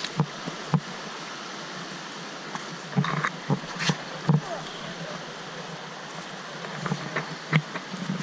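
Steady rush of a creek flowing over rocks, with irregular thuds of footsteps on a dirt track.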